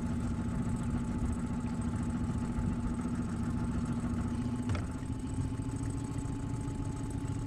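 Four-wheel-drive vehicle's engine running steadily at low speed while off-roading, with one short knock about five seconds in.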